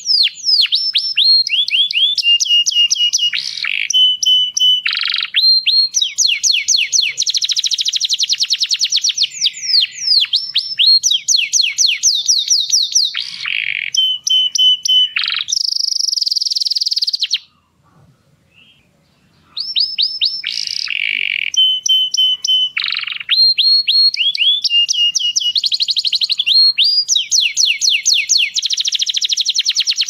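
Domestic canary singing: fast trills of rapidly repeated falling notes, some phrases held on a steady whistled note, broken by short pauses and about two seconds of silence a little past the middle.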